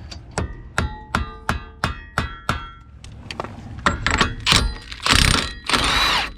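Steady metal-on-metal tapping, about three strikes a second, each with a short ring, that fades out around three seconds in. Louder, rougher scraping and clattering follow near the end.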